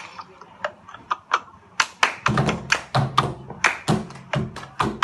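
Hand claps and taps in a quick rhythm, getting denser about two seconds in, when music with a low steady bass note joins in.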